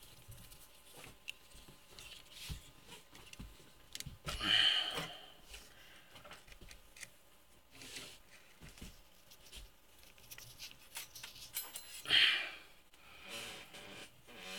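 Quiet handling noise from setting a dial indicator and its stand on a lathe headstock: scattered small clicks and taps of metal parts, with two short hissing bursts, about four and a half and twelve seconds in, that are the loudest sounds.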